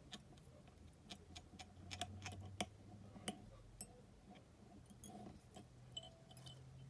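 Faint, irregular small clicks and taps of fly-tying tools working at the vise, over a low steady hum.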